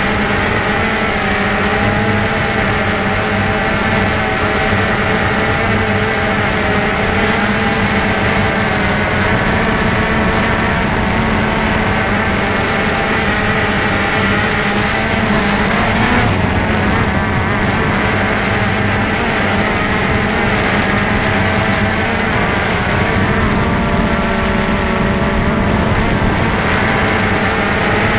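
DJI Phantom 2 quadcopter's electric motors and propellers running in flight, a loud, steady buzzing whine whose pitch shifts a little as the drone steers. Heard from the camera mounted on the drone itself.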